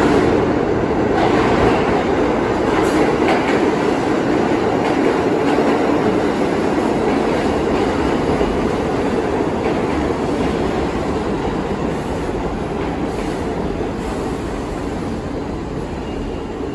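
R46 subway train entering an underground station platform. A loud steady rumble of wheels on rail comes with some clacking over the rail joints, and it eases off slowly as the train slows alongside the platform.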